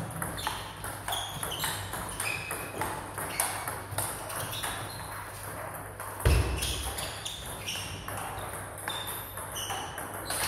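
Table tennis balls ticking sharply off bats and tables in quick, irregular succession, with a single dull thump about six seconds in.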